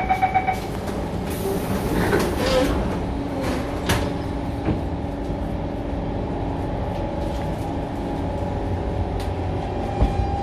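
Inside an SMRT C651 metro train: rapid door-closing warning beeps stop about half a second in, and a short burst of hiss follows. The car then carries on with a steady rumble and a low hum.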